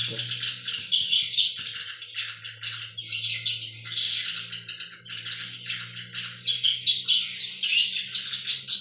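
Swiftlets chirping: a dense, continuous chatter of short high chirps, over a low steady hum that dips briefly about a second in.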